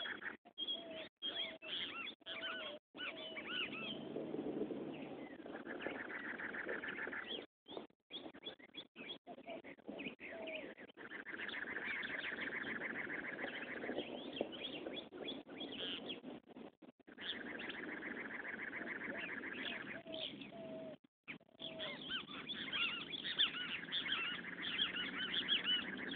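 Several birds calling together: many short chirps and stretches of buzzy trilling, with shorter, lower calls in between.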